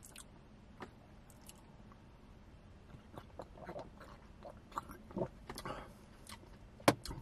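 A person drinking soda from a glass bottle, close to the microphone: faint mouth clicks and swallows, with a sharp click near the end.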